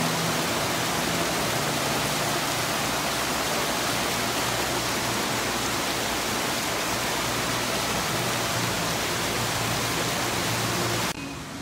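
Fountain bubbler jets splashing into a shallow basin: a steady rush of falling water that cuts off suddenly near the end.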